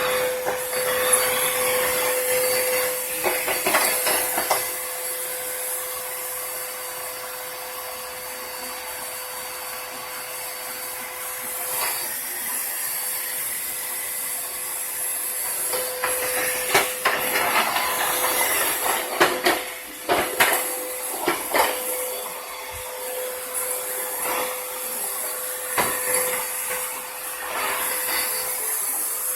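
Vacuum cleaner running with a steady whine, broken by scattered knocks and clatter.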